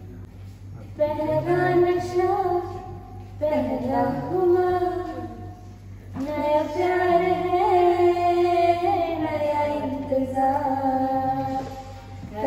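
Two women singing a worship song together into a handheld microphone, in long held phrases with short breaks for breath between them.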